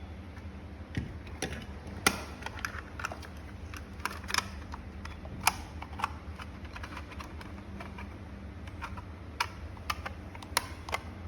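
Irregular sharp clicks and taps of hard plastic parts of a ceiling fan wall control being handled and fitted together, over a steady low hum.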